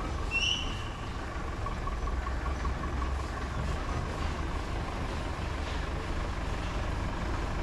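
Steady low hum of road traffic with a faint steady tone over it, and one short high squeal about half a second in.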